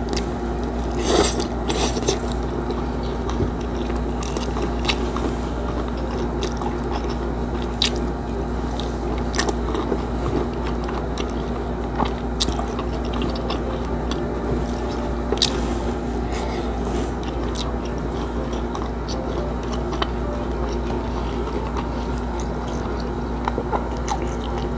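Close-up eating sounds of a person chewing mouthfuls of rice and crispy fried milkfish, with scattered sharp crunches and mouth clicks over a steady low hum.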